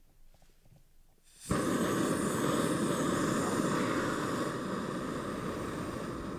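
Butane canister camp stove lit by turning its valve: gas hisses on about a second in, catches with a sharp pop, and the burner then runs with a steady loud rushing noise under the pan.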